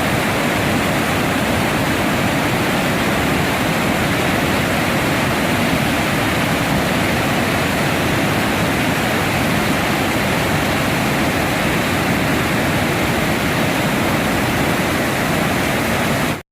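Mountain valley stream with water rushing steadily and loudly. It cuts off suddenly just before the end.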